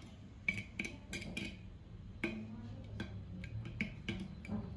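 Steel spoon stirring buttermilk in a terracotta clay pot, clicking and scraping against the pot's wall in short, uneven taps about two or three times a second.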